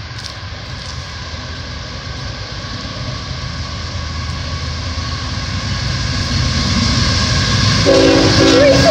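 CSX diesel locomotives at the head of an intermodal freight train, approaching with a steady engine rumble that grows louder throughout.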